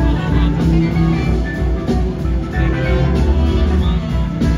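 A live blues-rock band playing: electric guitar over bass, drums and keyboards, on a steady beat.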